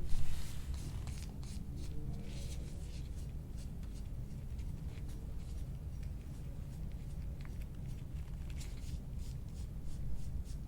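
Hands rubbing and scraping over the body in many short scratchy strokes during hands-on soft-tissue work, over a steady low rumble, with one brief louder knock at the start.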